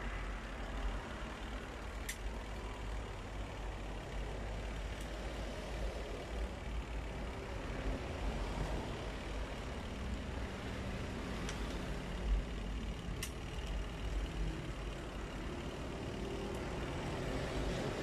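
A steady low background rumble, like distant traffic, with a few faint clicks and taps from handling wires and a small toggle switch as a wire is connected.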